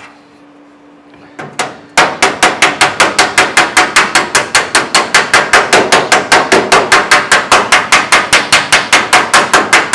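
Body hammer striking a freshly TIG-welded seam in a 1932 Ford's steel cowl panel against a dolly held behind it. After a couple of light taps, rapid, even blows of about five a second start two seconds in. This is hammer welding: stretching the weld back out and flattening it.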